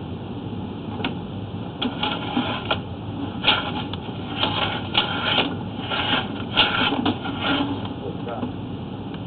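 Drain-cleaning machine running steadily while it cuts tree roots in a clay sewer line, with bursts of irregular clattering from about a second in until near the end.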